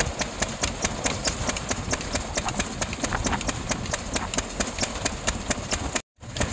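Peanut thresher running, a steady mechanical clatter with an even beat of about five or six sharp knocks a second. The sound drops out for a moment near the end.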